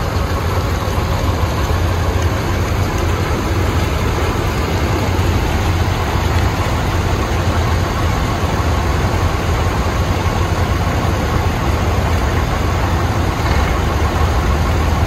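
Vintage farm tractor engines idling: a steady, low, even drone with no revving.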